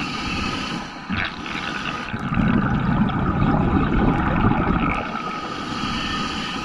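Underwater ambience heard through a camera's waterproof housing: a continuous rush of water, swelling louder and deeper for a few seconds in the middle as the diver swims, over a faint steady hum.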